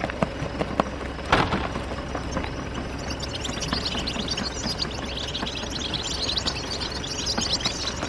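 A flock of caged European goldfinches chirping, many short high calls overlapping, growing dense from about three seconds in as the cage lids are opened. A brief loud burst comes about a second in.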